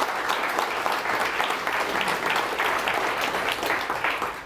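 Audience applauding: many hands clapping in a dense, even patter that dies away near the end.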